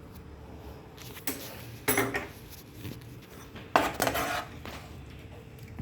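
Cutlery clinking against a dish as the egg curry is served or eaten: three sharp clinks with brief ringing, about a second, two seconds and nearly four seconds in.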